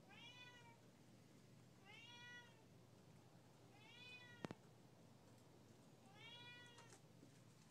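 Siamese cat meowing four times, each meow rising then falling in pitch, at the owner who has stepped outside. A single sharp click about halfway through.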